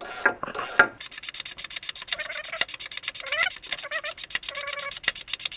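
A few scraping strokes, then a ratchet wrench clicking rapidly and evenly, about ten clicks a second, as it turns the screw of a puller pressing a new rubber-metal silent block into a VAZ-2110 rear beam. Short squeaks come in between the clicks.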